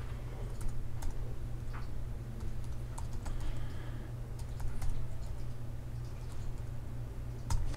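Computer keyboard typing: irregular, scattered key clicks as a layer name is typed, over a steady low hum.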